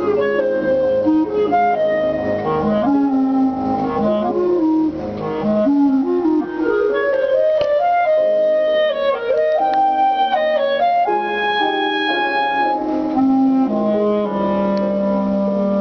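Clarinet playing a melody of short stepping notes, ending on a long held low note.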